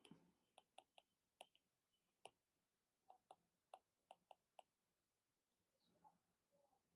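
Near silence with about a dozen faint, irregular clicks in the first few seconds.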